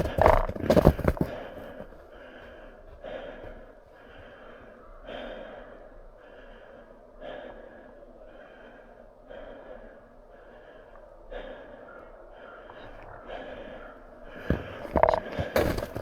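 A person breathing hard close to the microphone, about one breath a second. Bursts of crunching steps in snow come at the start and again near the end, louder than the breathing.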